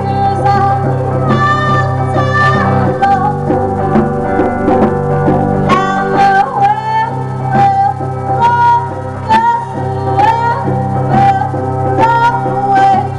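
A live band playing: a woman sings a melody over an electric guitar and drums keeping a steady beat of about two strokes a second.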